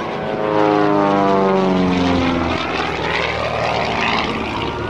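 SIAI-Marchetti SF.260's six-cylinder piston engine and propeller at high power as it dives out of a loop and passes close by, its pitch dropping steeply about a second in. After the pass a rushing drone.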